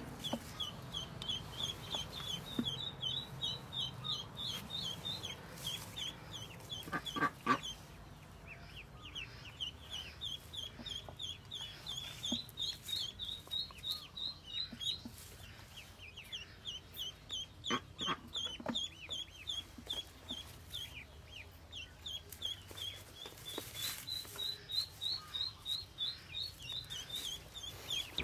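Newly hatched ducklings peeping: short high chirps repeated about five a second in long runs with brief pauses. A couple of brief knocks stand out, the loudest about seven seconds in.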